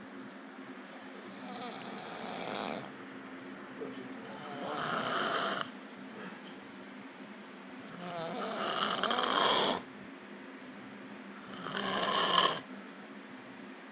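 A person passed out asleep, snoring loudly. There are four long snores about three to four seconds apart, each building up and then cutting off sharply, the later ones louder.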